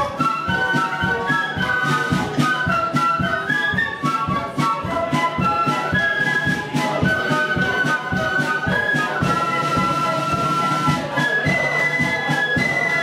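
Flute band playing a melody together on flutes and piccolos, with drums keeping a steady beat underneath.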